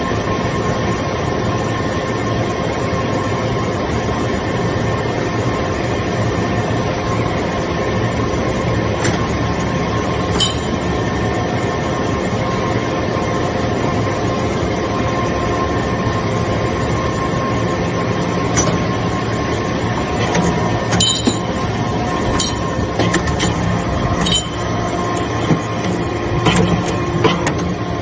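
TCM Baler iron chip briquetting press running: a loud, steady mechanical hum with several steady tones from its hydraulic power unit. Sharp metallic clicks and clinks come now and then, most often in the last third.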